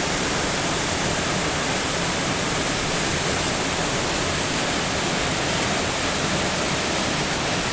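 Inversnaid waterfall: water falling over rock into a pool, a loud, steady, unbroken rush.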